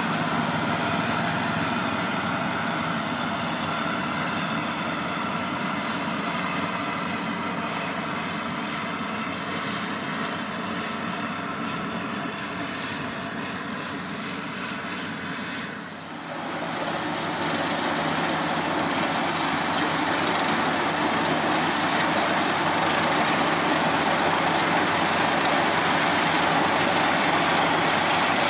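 Crown Sumo rice combine harvester running steadily as it harvests. About halfway through, the sound changes abruptly and becomes louder, with more of a steady rushing noise, and it keeps growing a little toward the end.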